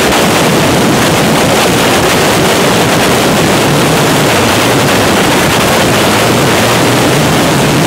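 Loud, steady rush of freefall wind buffeting the camera's microphone.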